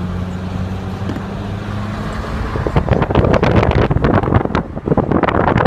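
A steady low motor hum, then from about three seconds in loud, gusty wind buffeting on the microphone covers it.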